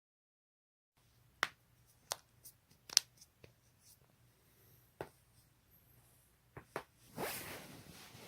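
Joints being cracked: a series of sharp pops at uneven intervals, the loudest about three seconds in. A softer rustling follows near the end.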